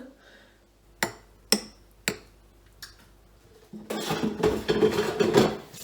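A spoon knocks sharply three times against a container, then scrapes thick smoothie for about two seconds.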